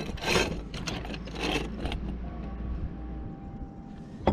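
Short scraping and rubbing noises as a cover is worked off a bolt hole in a sailboat's mast step plate by hand, the loudest in the first half, then quieter handling over a low steady rumble.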